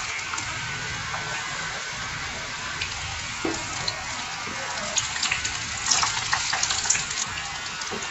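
Onion pakodas deep-frying in hot oil: a steady sizzle with scattered crackles. Around the middle, as a wooden slotted spatula stirs the fritters, the crackling grows louder and busier.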